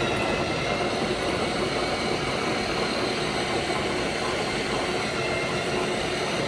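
Steady mechanical whir of the Quad 40mm Bofors mount's elevation drive: a large electric reversing drill, fitted in place of the hand crank, turns the gearbox to raise the barrels. It cuts off sharply at the very end.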